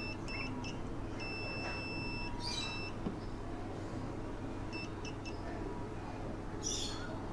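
Multimeter continuity beeper sounding as test probes touch points on a power-supply board: a steady high beep in a few short blips, then one tone about a second long and a shorter one, then more short blips later on, over a steady low hum. Each beep marks a low-resistance path between the probes.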